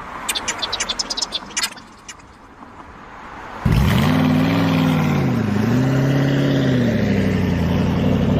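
A rapid run of clicks, then about three and a half seconds in a loud engine-like running sound cuts in and holds steady, its pitch dipping and rising again once.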